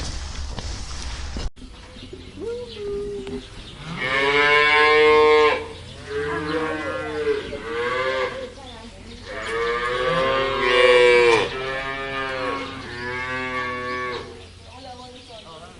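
Cattle mooing over and over: a string of drawn-out calls, the two longest and loudest about four and ten seconds in, with shorter moos between them and a fainter one near the end.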